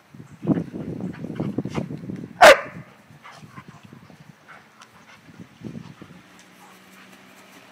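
Two large dogs play-fighting: low growling for about two seconds, then one loud, sharp bark about two and a half seconds in, with brief growls again near six seconds.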